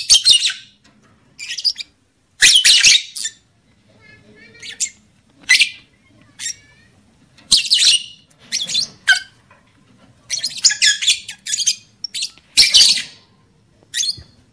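Lovebirds calling: short, harsh, shrill chirps and squawks about once a second, with a few quick chattering trills between them.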